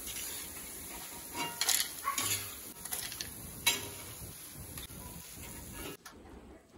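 Boondi frying in hot oil in a kadai, a steady sizzle, with several light clinks and taps of a perforated steel ladle against the pan and strainer as the boondi are scooped out. The sizzle drops away about six seconds in.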